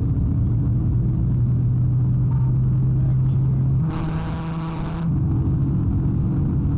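Steady low drone of a police car's engine and road noise heard from inside the cabin during a highway pursuit. About four seconds in, a brief hiss lasts about a second.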